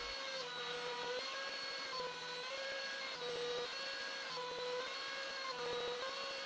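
CNC machine's compact router running and milling plywood, with dust extraction drawing air. A steady high whine whose pitch dips slightly about once a second as the bit loads up in the cut.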